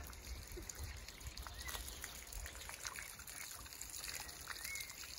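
Water trickling and splashing from a hand-pumped outdoor foot-washing fountain as its lever is worked.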